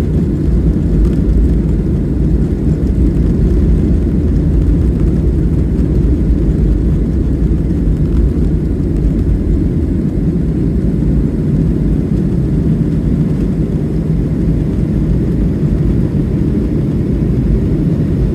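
Boeing 737-800 jet engines at takeoff power: a loud, steady low rumble that holds unchanged throughout.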